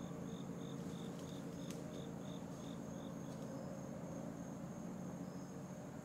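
Woodland insects: a steady high-pitched drone, with a short chirp repeating about three times a second that stops about three and a half seconds in.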